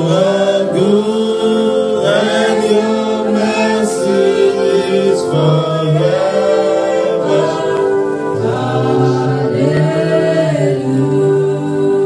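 Congregational worship singing: voices singing together in long held notes over sustained keyboard chords.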